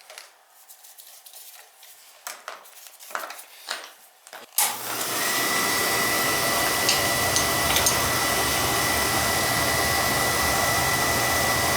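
A few faint handling clicks, then about four and a half seconds in a Beckett oil burner fires up suddenly: its blower motor and flame run steadily with a thin high tone over the rush. This is a test fire after a cleaning and a change to a smaller nozzle to cut the flame rollout.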